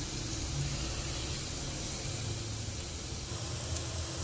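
Mixed vegetables sizzling in ghee on a hot flat griddle: a steady hiss.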